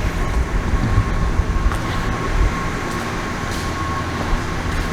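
A vehicle engine idling steadily with a low rumble, with a constant thin whine over it.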